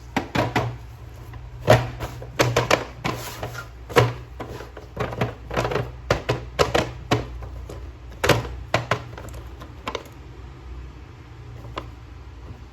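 Irregular clicks, taps and knocks of plastic being handled, as a packaged toy action figure is unboxed. The clicks come thick and fast for most of the stretch and thin out over the last few seconds.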